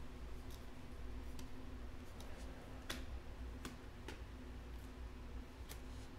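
Faint, irregular ticks of glossy football trading cards being slid one behind another in the hand as a stack is flipped through, about six over a low steady hum.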